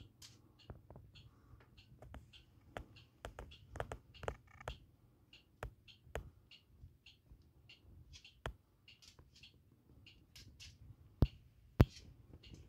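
Scattered soft clicks and taps at an uneven pace, handling noise from fingers shifting on a handheld phone, with two sharper clicks near the end.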